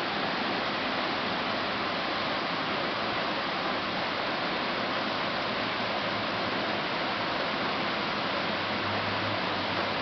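Heavy rain falling in a downpour: a steady, even hiss with no let-up.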